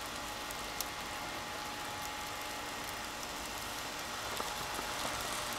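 Steady hiss of heavy snow falling, with faint scattered ticks.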